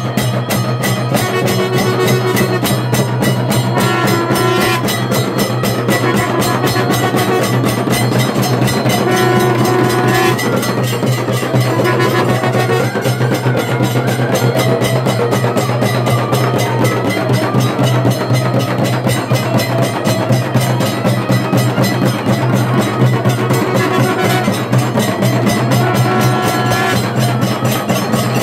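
Music with fast, steady drumming and a melody of held notes over a continuous low drone.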